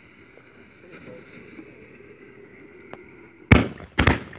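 Consumer aerial fireworks launching: after a few quiet seconds, two sharp bangs about half a second apart near the end, the second one doubled, as the shots leave their tubes.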